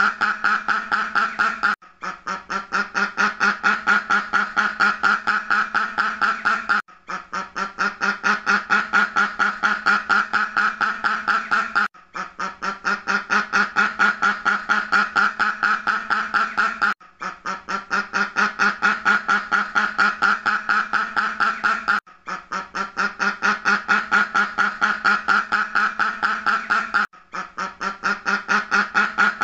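Ducks quacking in a rapid, continuous series of several quacks a second. A brief break comes about every five seconds, after which the quacking starts a little quieter and builds again.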